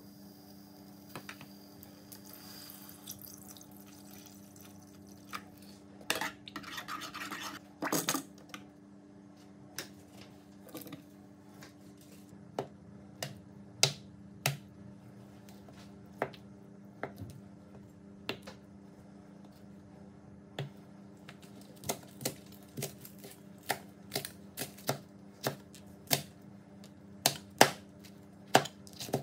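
A chef's knife chopping tofu and then chili peppers on a plastic cutting board: single sharp knocks of the blade on the board at an uneven pace, coming closer together near the end. A scraping rustle comes about six seconds in, over a steady low hum.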